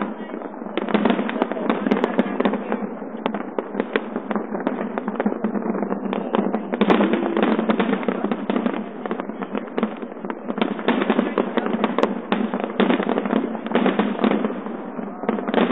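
Large fireworks display heard through a phone's microphone: aerial shells bursting in rapid, overlapping succession with continuous crackling, the bangs never letting up.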